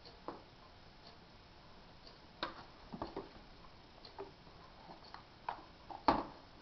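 A baby's hands tapping and knocking on the hard plastic of an activity toy and high-chair tray. About a dozen light, irregular clicks, the loudest about six seconds in.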